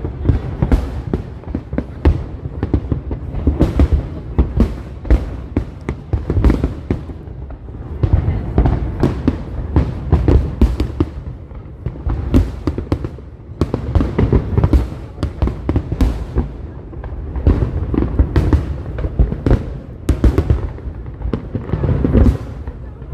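Fireworks going off in a dense, irregular barrage of bangs and crackles, with deep booms.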